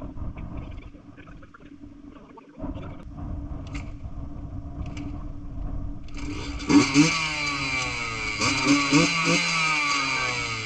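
Husqvarna WR125 two-stroke dirt bike engine running again after its fouled spark plug was cleaned, revved in several quick blips in the second half, its pitch rising and falling with each blip.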